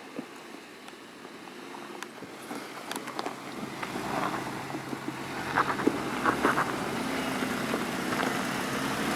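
2014 Jeep Wrangler Unlimited Sport's V6 engine running at low revs and growing steadily louder, with scattered clicks and crunches.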